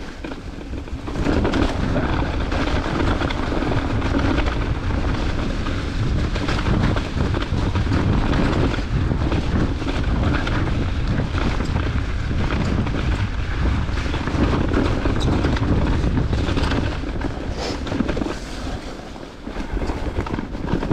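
Riding noise from a Cube 29-inch mountain bike on a wet trail: tyres running over the ground, the bike rattling and wind buffeting the microphone, loud and steady from about a second in, dipping briefly near the end.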